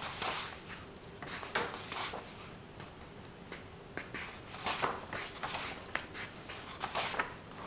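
Pages of a thick paperback book being turned by hand: a string of soft paper swishes and rustles, several in a row.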